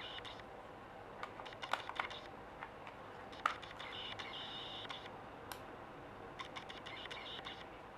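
Bursts of rapid light clicking and tapping, with a sharper single knock about three and a half seconds in.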